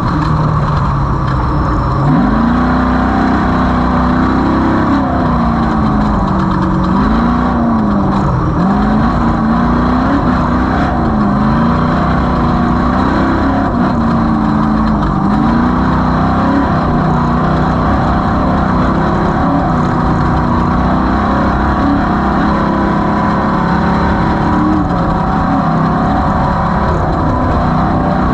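Off-road race vehicle's engine running hard, its pitch rising and falling every second or two as the throttle comes on and off, over a constant low rumble.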